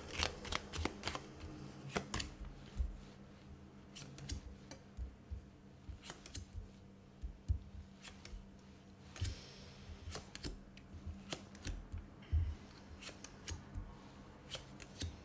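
Tarot cards being drawn from the deck and laid one by one on a glass tabletop: a string of irregular crisp snaps and taps, with a brief sliding swish about two-thirds of the way through.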